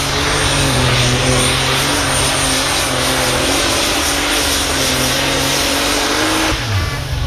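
A Superstock pulling tractor's engine runs flat out under full load during a pull, its pitch climbing slowly. The sound drops away sharply near the end.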